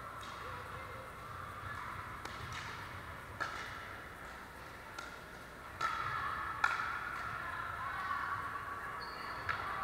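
Pickleball paddles striking a plastic ball in a rally: about six sharp pops at uneven gaps of about a second. The pops ring out in the reverberant gym hall over a steady background hum.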